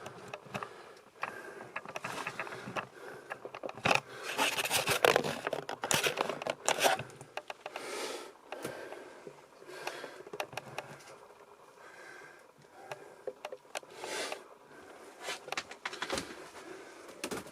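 Irregular scraping, rustling and clicking of someone moving through a cluttered room, with no steady rhythm. There are denser flurries of scrapes about four to five seconds in and again near fourteen seconds.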